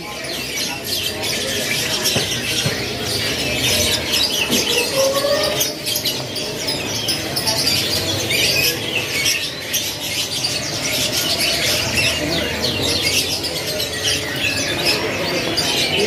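A crowd of young domestic canaries in packed cages chirping and twittering without a break: a dense chorus of short high calls.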